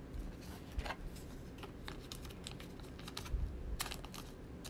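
Football trading cards handled and flipped through by hand: scattered light clicks and soft rustles of card stock, with a quick flurry of clicks a little before the end.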